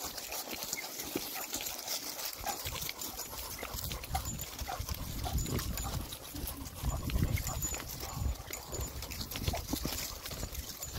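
Dogs moving about close by on a walk, with irregular scuffing steps and small clicks and knocks.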